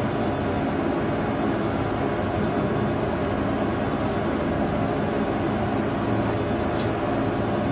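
Steady, even background noise with a low hum and no speech: room and equipment noise.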